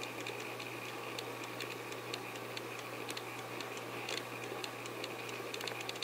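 Faint, irregular soft ticks and rustles of a round fluffy makeup brush sweeping powder blush across the cheek, over a steady low hum and hiss.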